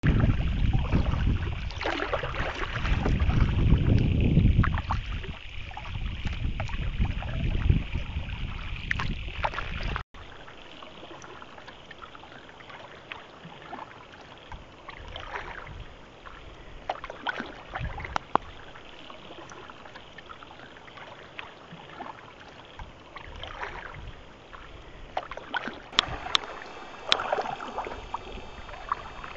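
Canoe being paddled: water sloshing and splashing from paddle strokes, with knocks on the hull. Over the first ten seconds a heavy low rumble sits under it. It cuts off abruptly, and a quieter stretch of scattered splashes and knocks follows.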